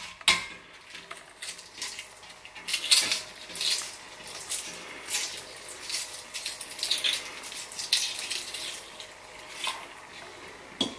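Hard-boiled eggs being cracked and peeled by hand over a steel pot of cool water: irregular crackles and taps of shell, with small water sounds from the pot.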